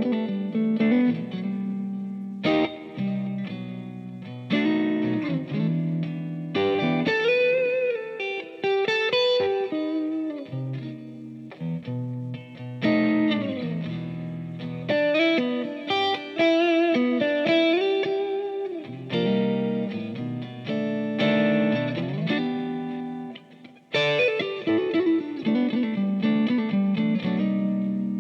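Electric guitar played through a Kemper profiling amp into a Kemper Cab with its Kemper Kone speaker, picked up by a condenser microphone in front of the cabinet: chords struck every few seconds, with single-note lines, string bends and vibrato in between.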